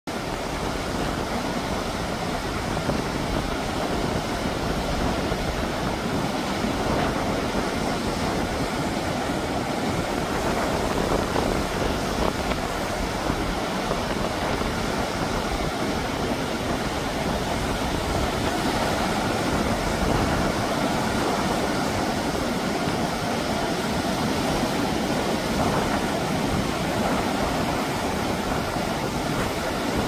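Heavy surf breaking and churning over shoreline rocks, a steady unbroken wash of waves with no lull between them; the rough sea is typhoon swell.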